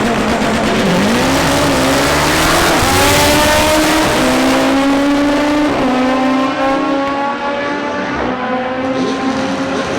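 Front-wheel-drive drag car accelerating hard down the strip. The engine's pitch climbs and drops back at each upshift, about every two to three seconds.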